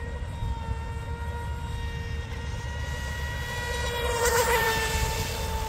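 Mini Mono RC boat's electric brushless motor and propeller whining steadily at speed, one high tone with overtones. About four seconds in the boat passes close and the hiss of its spray swells with the whine.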